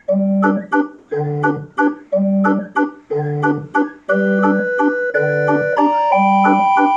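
Electronic barrel organ (orgue de Barbarie) playing a tune read by its optical reader. The accompaniment has a low bass note about once a second, alternating between two pitches, with short chords after each. Held melody notes come in about four seconds in.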